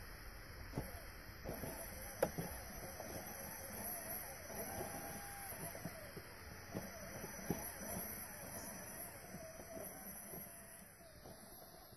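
RC scale crawler being winched up through snow: a thin small-electric-motor whine with scattered clicks and crunches of the tyres in the snow.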